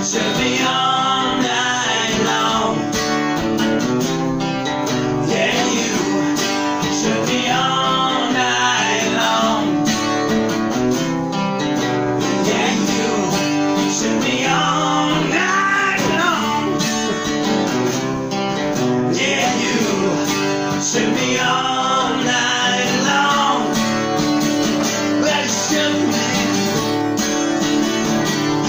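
Two acoustic guitars strummed together, with a man singing over them in places.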